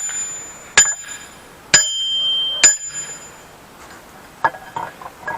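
Steel striking steel on a forged blacksmith's post vise: three sharp hits about a second apart, each ringing on like a bell, then a few lighter clinks near the end.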